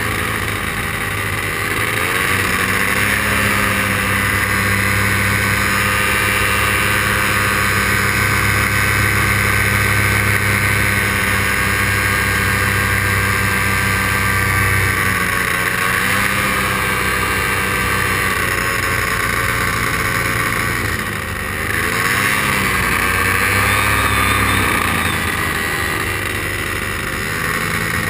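Paramotor engine and propeller running steadily in flight. Its pitch wavers and dips briefly a few times, and it drops in loudness for a moment about three-quarters of the way through.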